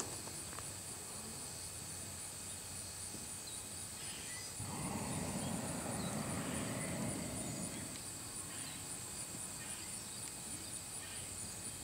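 Insects chirring steadily in a high, finely pulsing drone over quiet rural ambience. A low rushing noise swells for about three seconds midway, then fades.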